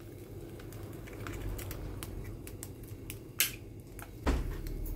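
Egg frying in a nonstick pan, with irregular small crackles and pops of spitting oil.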